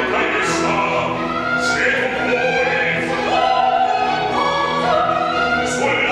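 Operatic duet with orchestral accompaniment: a bass sings and a soprano takes over in the middle with long high notes held with vibrato.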